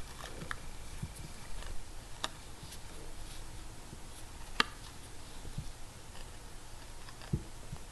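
Faint scattered clicks and soft handling noise from a steel crochet hook being worked through thread, with one sharper click about halfway through.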